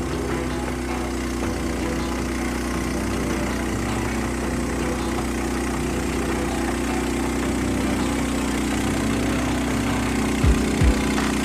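Portable bandsaw mill's engine running steadily at a constant speed, with a couple of short low thumps near the end.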